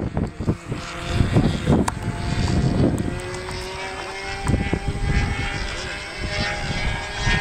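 Radio-controlled model airplane's motor and propeller droning at a steady pitch, coming in about three seconds in, with wind rumble and knocks on the microphone before it.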